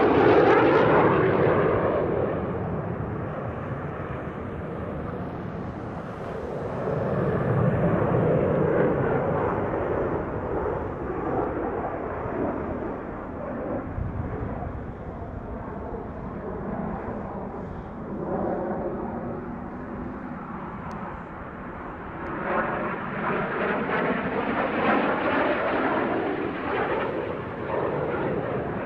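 Jet noise from a Yak-130 jet trainer's twin turbofan engines as it flies display manoeuvres overhead. The sound swells and fades as the aircraft moves: loud at the start, louder again about a quarter of the way in, and again about three-quarters of the way through.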